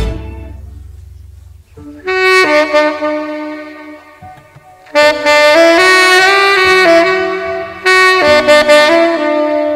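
The music before it dies away, then a tenor saxophone comes in about two seconds in, playing a slow pop-ballad melody in long held notes. It drops back briefly around the middle, then plays louder, fuller phrases.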